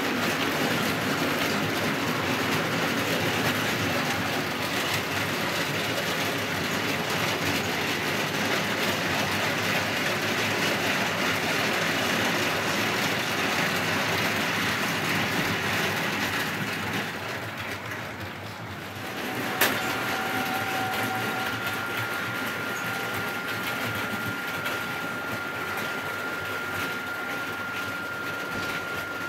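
Model trains running on the layout track: a steady rumble of wheels and small motors that fades out about eighteen seconds in. Then a sharp click, followed by a steady high whine.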